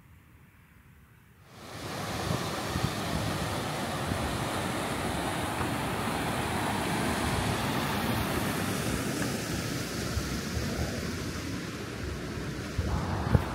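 A steady, even rushing noise spread across low and high pitches, which starts abruptly about a second and a half in.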